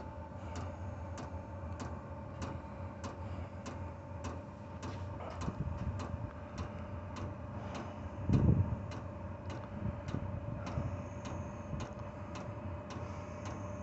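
Chinese diesel air heater's fuel dosing pump ticking evenly, about one and a half ticks a second, over the steady hum of the heater's blower during start-up. One low thump about eight seconds in.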